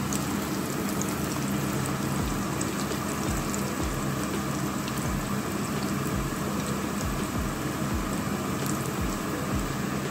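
Cottage-cheese doughnuts (papanași) deep-frying in hot oil in a pan: a steady sizzle with fine crackling, over a low steady hum.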